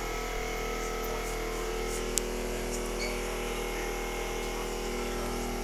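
A steady electric buzz, with one sharp click about two seconds in.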